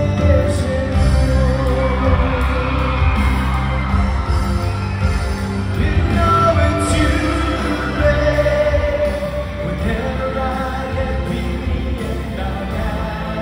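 Male singer singing live into a handheld microphone over amplified backing music with a steady beat, holding some long notes, heard through the hall's PA system.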